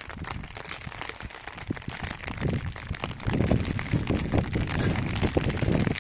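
Water splashing and sloshing as things are washed by hand in a shallow metal tray, with an uneven low rumble that grows louder about two and a half seconds in.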